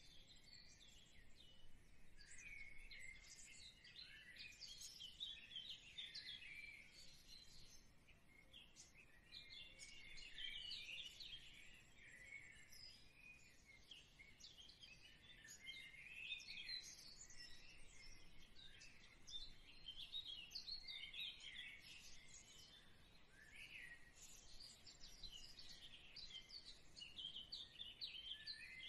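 Faint chorus of small birds chirping, with many short, high, overlapping calls throughout.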